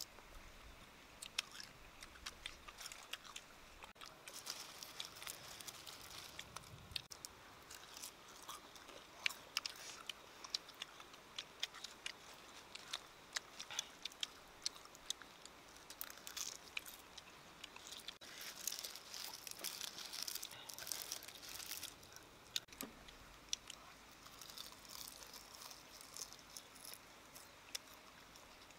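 Close-up eating sounds: chewing, lip smacks and small crackles as cooked worms are picked apart by hand and eaten. The clicks are scattered and irregular, thickest in the middle stretch.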